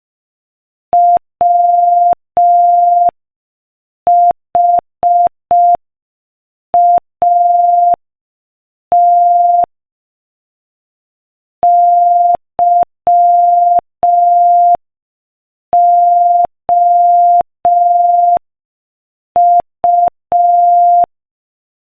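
Morse code sent as a single steady electronic beep, keyed on and off in short dots and long dashes at 5 words per minute, with silent gaps between letters and words.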